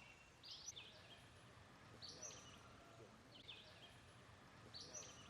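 Faint bird song: a short, high chirping phrase repeated four times, about every second and a half, over quiet outdoor background hiss.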